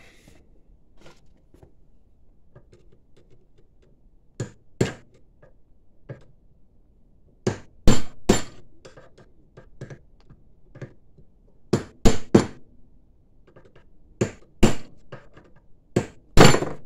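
Hammer blows on an e-bike front hub motor clutch clamped in a vise, to knock it apart: about a dozen sharp knocks in uneven groups of two or three, starting about four seconds in and getting louder.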